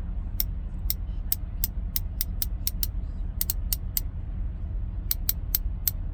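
Olsa Tools 1/2-inch swivel-head ratchet worked back and forth by hand, its pawl clicking over the gear teeth in sharp single clicks, a few per second in uneven runs with short pauses between. A steady low hum runs underneath.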